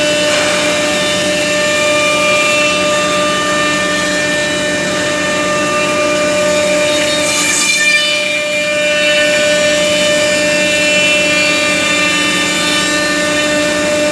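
Three-spindle CNC wood router running and cutting wood: a steady whine from the spindles over the noise of the cut, with a brief louder rush of cutting noise about halfway through.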